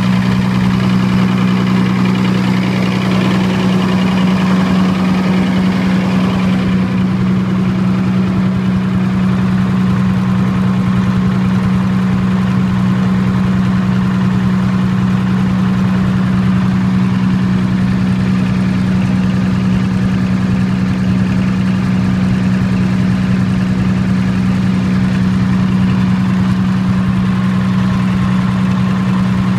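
Diesel generator engine running steadily at constant governed speed, with a strong, even hum. The sound turns a little duller about six seconds in.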